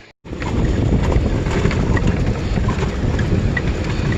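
Steady low rumble with a hiss, starting abruptly after a brief silence at a cut.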